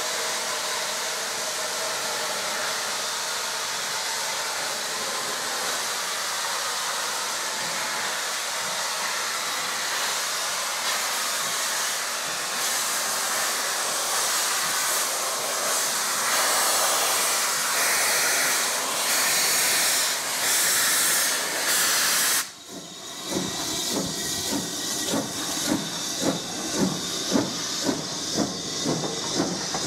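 Single-chimney BR Standard 9F 2-10-0 steam locomotive hissing hard as steam blows from its cylinder drain cocks, louder in spurts. About two-thirds of the way through the hiss breaks off and is followed by the locomotive's exhaust chuffs, about two a second and quickening, as it moves off.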